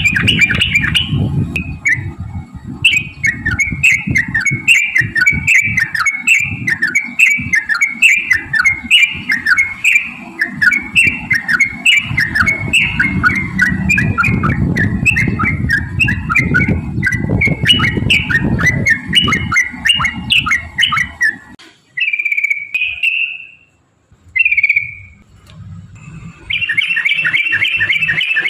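Yellow-vented bulbul (trucukan) singing a long rolling chatter of quick whistled notes over low crackling noise and clicks. About 21 s in the song breaks off to a few single notes, then resumes as a fast, dense trill near the end.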